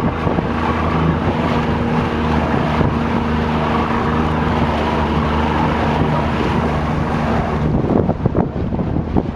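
Speedboat engine running at a steady pitch with water and wind noise. About eight seconds in, the engine note drops away and wind buffeting on the microphone is left.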